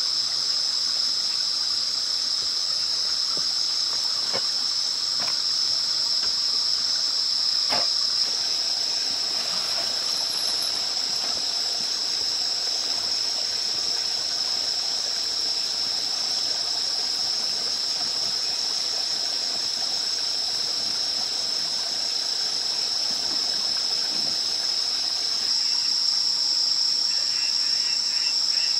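Night chorus of crickets, a continuous high-pitched trill that never lets up, with a few soft knocks and rustles in the first third.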